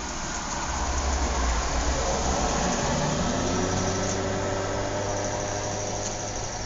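A car driving past on a suburban street: engine and tyre noise swell to a peak a second or two in, then slowly fade away.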